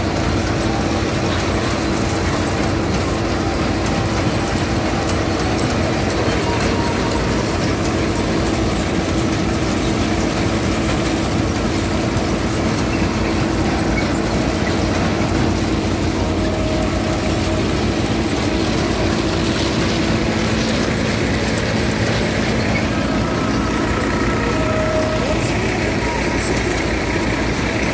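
Tractor-driven groundnut thresher running steadily: the tractor engine and the threshing machinery make a loud, constant mechanical drone.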